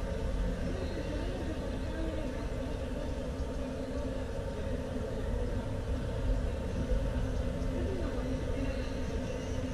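Steady low rumble of city street traffic, with faint voices of people around.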